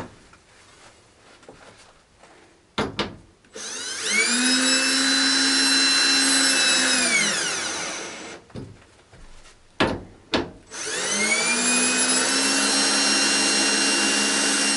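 Cordless drill driving quarter-inch machine-screw bolts through a wooden furring strip into plus nuts in a van's sheet-metal wall: two runs of steady motor whine, each a few seconds long. The first winds down about eight seconds in and the second starts around eleven seconds, with a few short clicks before each run.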